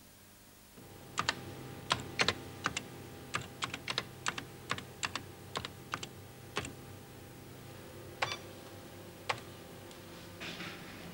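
Keystrokes on a computer terminal keyboard: a quick, irregular run of clicks for about five seconds, then two single key presses, over a steady hum.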